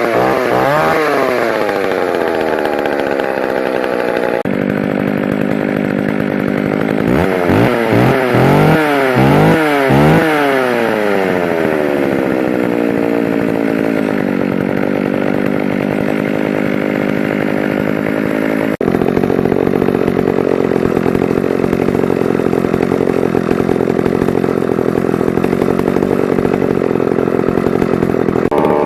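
Old McCulloch two-stroke chainsaws running after cold starts. One saw's throttle is blipped, its engine rising and falling in pitch a few times, then settles to a steady run. About two-thirds of the way through, the sound cuts abruptly to another saw running steadily.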